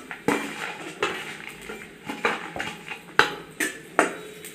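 Metal spoon scraping and knocking against a metal kadhai as raisins are tipped in and stirred in hot ghee, a series of sharp, irregular clanks.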